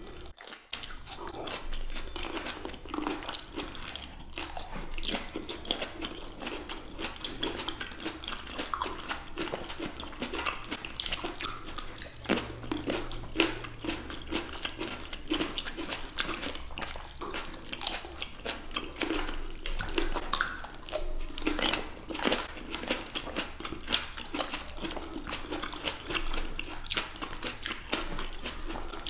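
Close-miked biting and chewing of fresh red grapes by two people: a steady, irregular run of small crisp pops as the skins break, with wet, juicy chewing in between.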